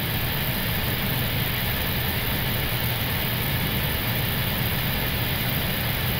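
Steady rush of airflow and engine noise on an Airbus A321neo flight deck on final approach with the landing gear down.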